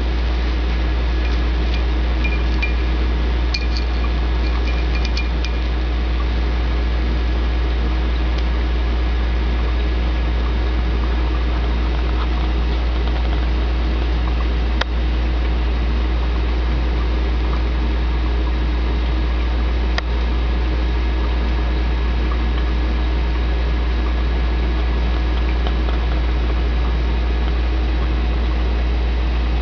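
Oxyhydrogen (HHO) torch flame hissing steadily as it is played on a piece of granite, over a steady low hum. A few faint ticks come in the first few seconds, and there are single clicks about halfway through.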